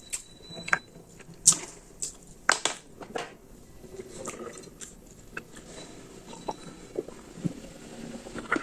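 Close-up eating sounds of noodles being chewed, with irregular wet mouth clicks and smacks: veg chowmein eaten by hand.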